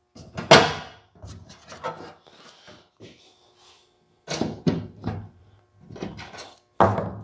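Clatter and knocks of a woven stainless steel mesh grille insert being handled and bolted into its frame with a T-handle hex key: irregular rattles in several bunches, the loudest about half a second in.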